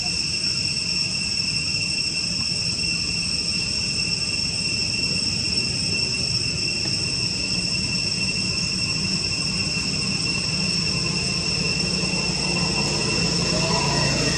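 Steady high-pitched insect drone holding one even tone, with a low rumble underneath.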